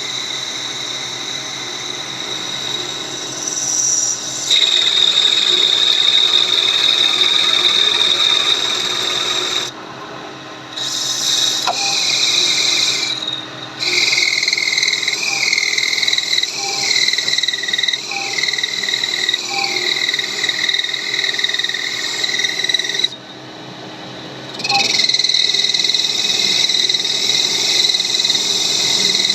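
CNC lathe cutting metal: a loud, high-pitched whine from the tool on the workpiece. It breaks off twice, and in the middle it runs as short repeated cuts about once a second, each one dropping slightly in pitch.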